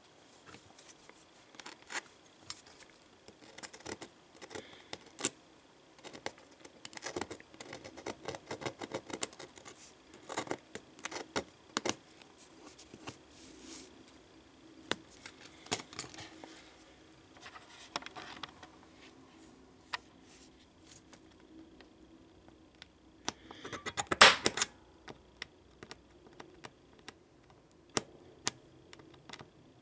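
A small metal hand tool scraping and clicking against the aluminium frame corner of an iPad Air as the bent corner is worked back into shape. Irregular sharp clicks and short rasps, with one louder, longer scrape about 24 seconds in.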